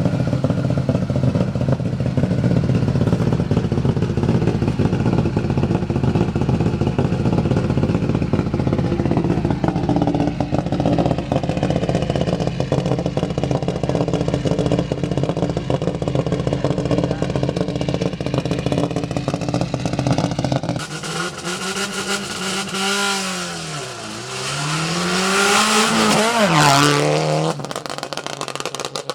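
Rally car engine running hard at steady high revs for about twenty seconds. It then changes abruptly to revs that fall and climb again a couple of times as the car slows and accelerates.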